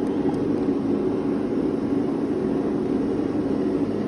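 A steady low roar of running workshop equipment, even and unbroken.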